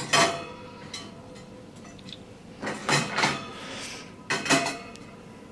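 Washed kitchen items, such as a coffee machine's milk jug and parts, clinking and clattering in a dish drying rack. There are three short bouts: one at the start, one about three seconds in and one about four and a half seconds in.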